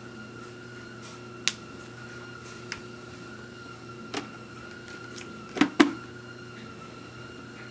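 Hands handling a dual-sport motorcycle helmet: a few sharp clicks and knocks against the helmet, the loudest a quick double knock about a second before the end. A steady faint tone hums underneath.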